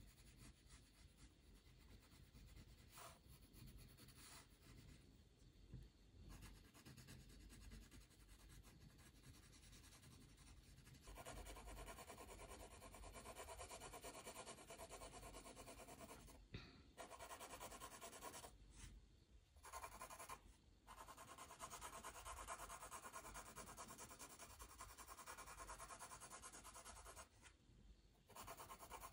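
Faint, scratchy pencil strokes on paper, as in sketching or shading. They grow louder about eleven seconds in and stop briefly a few times.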